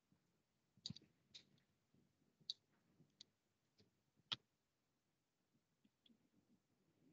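Several separate computer mouse and keyboard clicks over near-silent room tone, the loudest a little past four seconds in.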